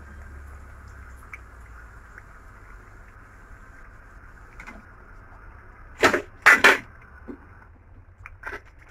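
Besan-battered potato fritters sizzling steadily in hot oil in a steel pot, with three loud metal clanks about six seconds in as the fried fritters are lifted out with a steel spoon, and a few lighter clicks.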